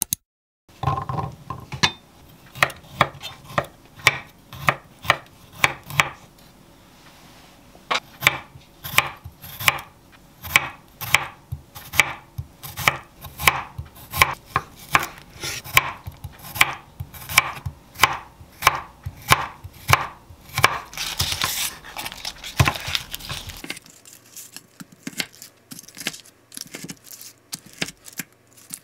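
Kitchen knife slicing garlic cloves thinly on a wooden cutting board: sharp knocks of the blade on the board, about two a second, with a short pause partway. For the last few seconds the cuts turn quieter and softer as the knife goes through frozen bacon.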